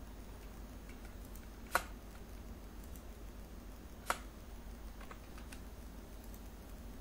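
Two sharp computer mouse clicks about two seconds apart, then a few faint ticks, over a faint steady low hum.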